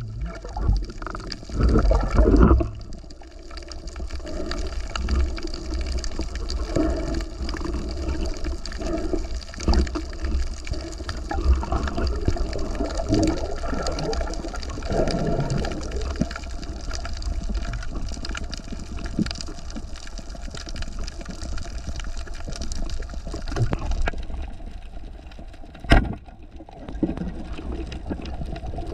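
Water sloshing and gurgling around the camera, rising and falling irregularly, with a single sharp knock near the end.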